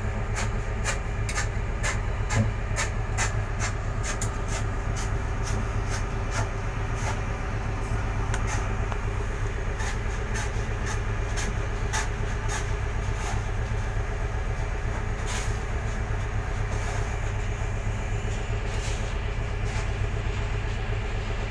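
A fishing boat's engine runs with a steady low drone. Sharp knocks and clatter sound over it, several a second in the first few seconds, then fewer.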